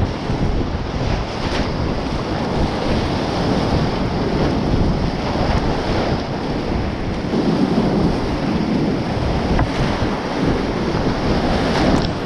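Whitewater rapid rushing loudly and steadily around a kayak, heard from a camera on the paddler as waves break over the bow. Near the end, water splashes across the camera.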